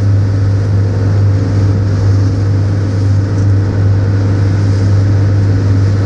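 Fishing boat's engine running steadily: a loud, even low drone.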